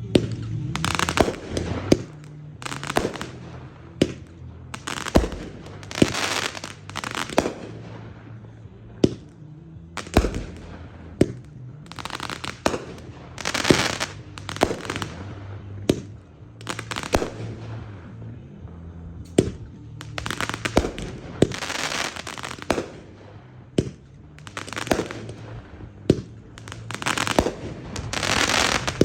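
Consumer fireworks cake (T-Sky Black Blade, 16 shots) firing: a long string of sharp shots a second or two apart. Each shot is followed by about a second of crackling from the crackle mines and crackle crowns. The shots come closer together near the end.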